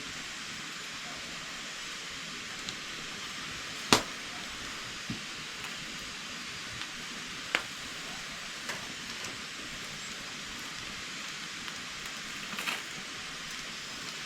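Firewood giving a few sharp cracks over a steady hiss, the loudest about four seconds in and another a few seconds later, with fainter ones between.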